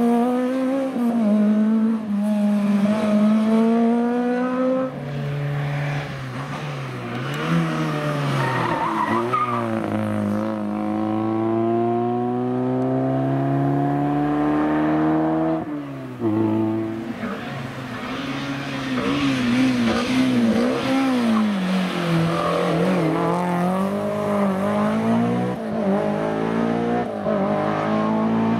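Historic rally cars at full attack on a tarmac special stage, one after another. Their engines rev hard and climb in pitch, dropping sharply at each gear change.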